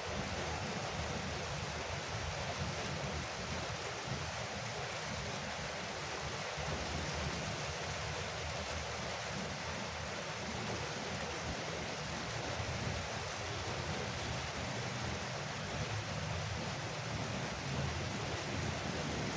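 Heavy rain drumming steadily on a veranda roof, a dense even hiss of drops with a low rumbling undertone.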